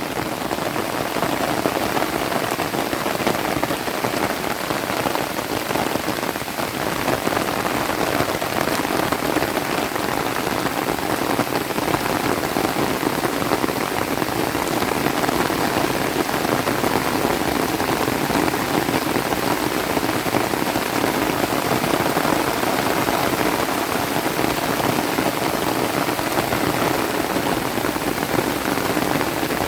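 Steady rain falling and pattering on surfaces, an even hiss throughout.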